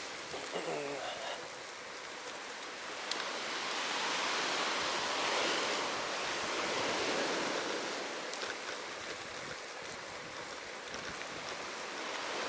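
Steady rushing noise like running water, swelling and fading slowly, with a faint snatch of voice about half a second in.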